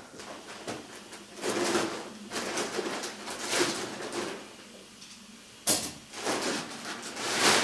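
Clear plastic wrapping rustling and crinkling in several bursts as it is handled and pulled off a mattress, with a sudden louder crackle a little before the end.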